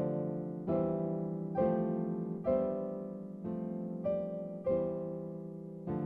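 Background music: slow, gentle piano with a note or chord struck roughly once a second, each ringing and fading.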